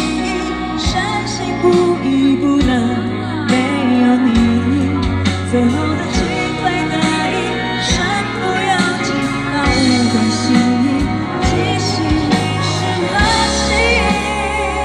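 A female singer performing a Mandarin pop ballad live over full band backing, with a steady bass and beat.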